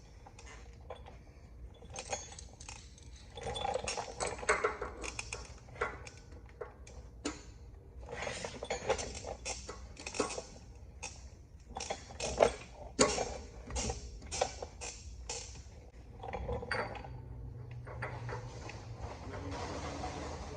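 Irregular metal clinks and knocks of tools and steel parts being handled, with a steady hiss over the last couple of seconds.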